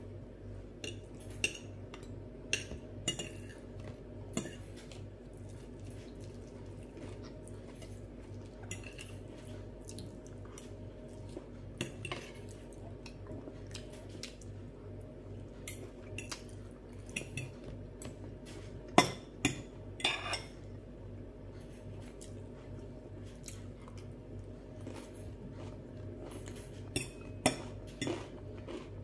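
Metal fork and knife clinking and scraping against glass plates while eating, in scattered, irregular clicks. The loudest clicks come a little past halfway. A steady low hum runs underneath.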